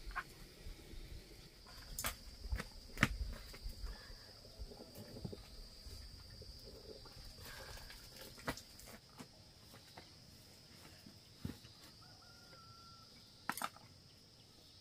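Steady high-pitched drone of insects, with a few sharp knocks and taps as cabbage leaves and kitchenware are handled, the loudest about two and three seconds in.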